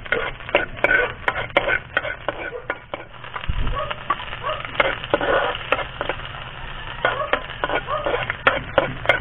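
Chopped garlic and green onion sizzling in oil in a steel wok as they are stirred with a metal spatula, over a crackling wood fire. Sharp pops and clicks come all through.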